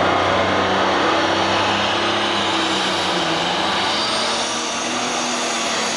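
Super stock pulling tractor's turbocharged diesel engine running flat out under heavy load while it drags the sled. The engine note holds steady, then shifts about halfway through.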